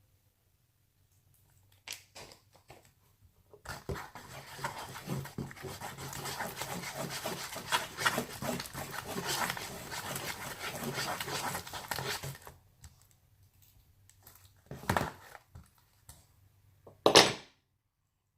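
Slime being mixed and worked: a dense run of sticky rubbing and crackling for about eight seconds, then two short loud handling knocks near the end.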